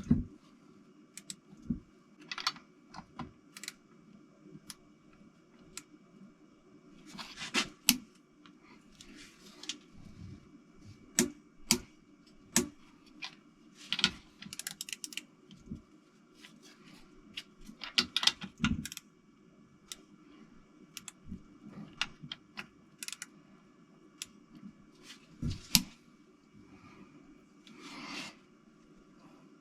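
Hand tools working bolts on a Toyota 4A-GE engine: scattered sharp metallic clicks and short bursts of clatter at irregular intervals, over a faint steady hum.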